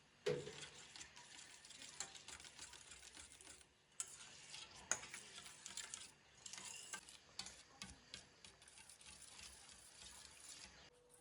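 Quiet kitchen cooking sounds: a utensil stirring in a pan over faint sizzling, with a few sharp clicks, one just after the start and two more around four and five seconds in.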